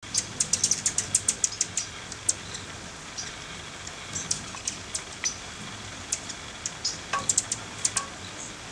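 Hummingbirds chattering with rapid, high squeaky chip notes as they fight over a feeder: a quick flurry of chips, then scattered chips. A steady hiss of rain lies underneath.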